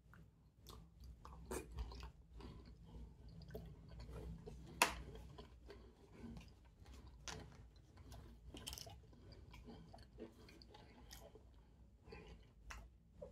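A person chewing a mouthful of fufu dipped in okra soup, with irregular soft wet smacks and clicks of the mouth and one sharp click about five seconds in.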